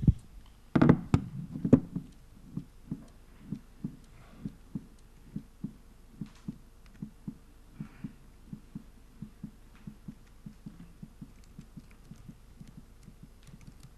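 Typing on a laptop keyboard, picked up through the presenter's microphone as a long run of soft low taps, about three a second and often in pairs, slowly fading. A few louder knocks about a second in, from the microphone being handled.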